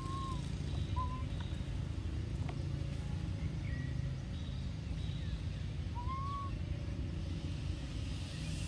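An infant long-tailed macaque giving short whistle-like coo calls, each rising then falling: two close together at the start and one more about six seconds in, over a steady low rumble of background noise.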